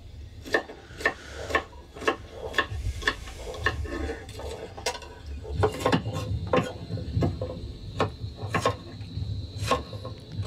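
Knife chopping okra pods on a cutting board: a string of sharp chops, roughly two a second.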